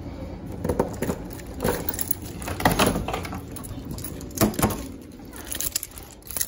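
A door being unlocked with a bunch of keys and pushed open: several separate clicks and knocks, with keys jingling.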